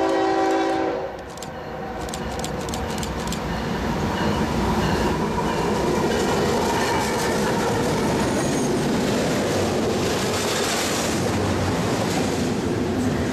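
CSX diesel freight locomotive's horn blast, ending about a second in, followed by the locomotives passing close and the double-stack container cars rumbling and clattering over the rails.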